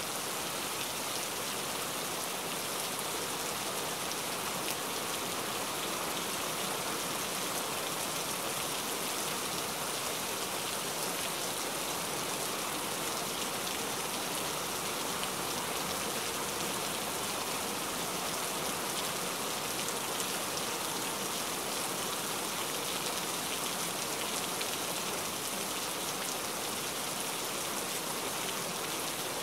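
Steady rain falling: an even, unbroken hiss that holds at one level throughout.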